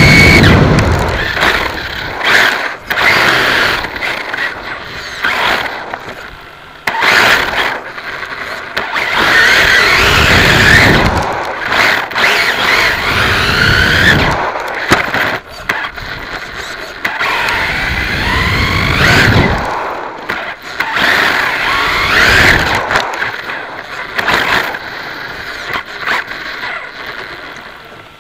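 An XTM XT2E electric RC buggy heard through its own onboard camera. The motor and gear whine sweeps up and down in pitch as the buggy speeds up and slows, with bursts of low tyre and wind rumble on the faster runs.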